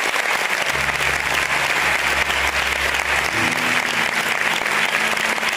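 Audience applauding steadily in an auditorium. Low sustained music notes start quietly underneath about a second in and move to a higher note past the middle.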